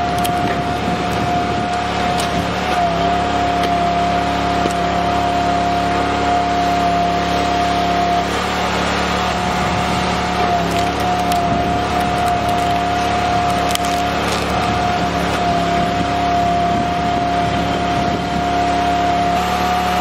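Log splitter running steadily with a constant whine and drone, while the wood cracks and splinters as the log is forced through the wedge.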